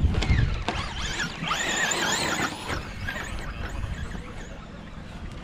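Several radio-controlled cars racing on a track, their motors whining up and down in pitch as they speed up and slow down, busiest about two seconds in. Wind rumbles on the microphone at the start.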